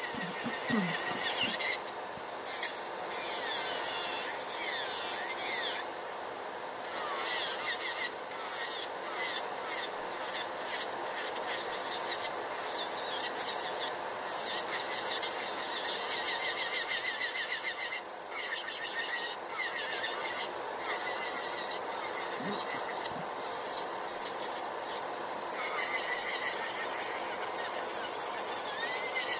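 Electric nail drill with a sanding bit filing down a fingernail: a high rasping hiss with a motor whine that wavers in pitch as the pressure changes. It breaks off briefly several times as the bit leaves the nail. Underneath runs the steady rush of the dust collector's fan.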